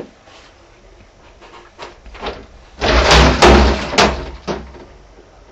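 Glass shower-enclosure door being handled: a few light clicks, then a loud clattering run of knocks and bangs about three seconds in, lasting under two seconds.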